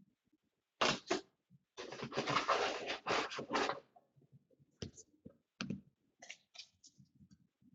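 Trading-card packaging handled and opened by hand: a couple of short rustles, then a couple of seconds of dense rustling and tearing, followed by scattered light taps and clicks.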